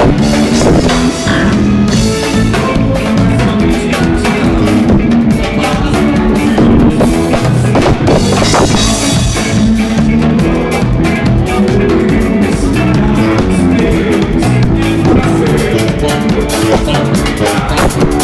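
A band playing loud music with a drum kit, bass and guitar.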